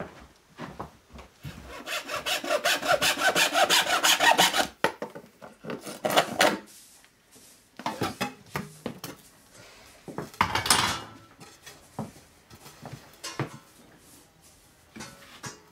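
Handsaw cutting through a thin wooden board held down on a stool, a long run of quick, even strokes followed by a couple of shorter cutting bursts and a few light knocks. The board is being cut to patch a broken window.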